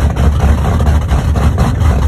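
Engine running steadily with a loud, deep rumble.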